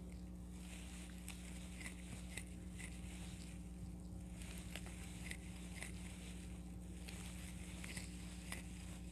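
Faint, irregular small ticks and rustles of a crochet hook pulling yarn through while working double crochet stitches, over a steady low hum.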